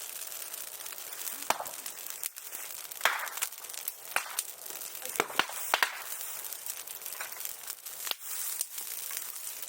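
Bonfire crackling: sharp pops, roughly one a second, over a steady hiss.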